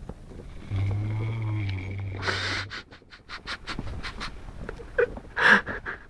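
Saint Bernard snoring in its sleep: one long, low snore starting about a second in, ending in a noisy breath, then a run of short clicks over the last few seconds.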